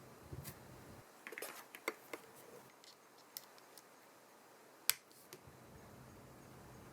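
Small clicks and taps from handling an iPhone 7 and small repair tools on a work surface: a quick cluster in the first two seconds, a few scattered ticks, then one sharper click about five seconds in.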